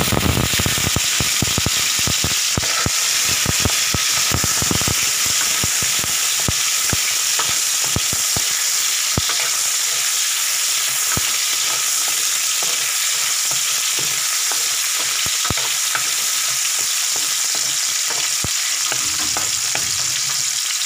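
Garlic, onion and tomato sizzling in hot oil in a metal wok, with a steady hiss. A wooden spatula stirs and knocks against the pan, the knocks coming thick and fast in the first few seconds and more sparsely after.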